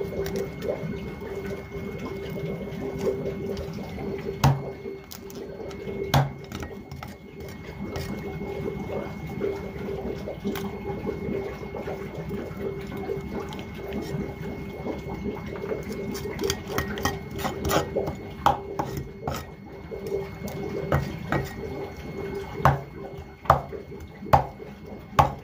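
A knife and then a cleaver scraping and cutting a fish on a wet wooden board, with scratchy wet scraping and small clicks throughout. In the last few seconds come a series of sharp knocks as the cleaver strikes the board. A steady hum runs underneath.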